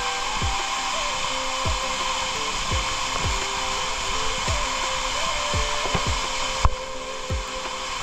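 Steady rushing roar of a large waterfall pouring onto rocks, under background music with a falling bass beat about once a second. There is a sharp click near the end, after which the rush dips slightly.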